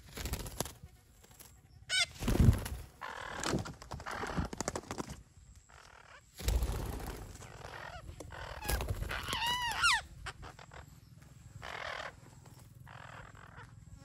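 Parakeets squawking: a string of harsh, rasping screeches, loudest about two and a half seconds in, with a longer pitched call that wavers in pitch near the ten-second mark.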